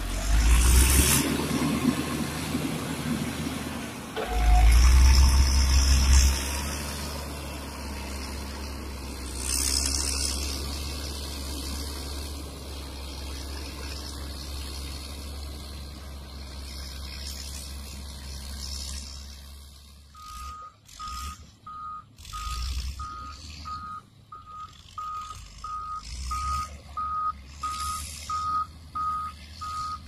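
Caterpillar motor grader's diesel engine running close by, loudest in the first few seconds, then a steadier, lower drone as the machine works further off. About two-thirds of the way in, a reversing alarm starts a steady series of beeps.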